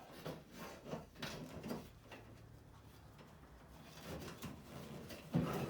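Faint clicks, knocks and scrapes of a window regulator being shifted around inside a steel truck door, with a quiet stretch in the middle.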